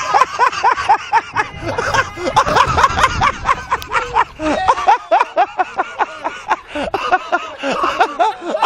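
People laughing hard and without a break, in quick repeated bursts of 'ha' several times a second. Low splashing of icy pond water and broken ice sits underneath in the first half.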